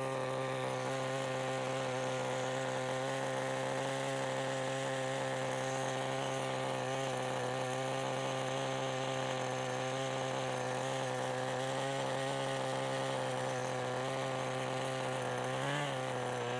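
OS Max 10 FP-B two-stroke glow engine of a 1988 Kyosho Ford RS-200 nitro RC car idling steadily after tuning, with a brief wobble in pitch about a second before the end.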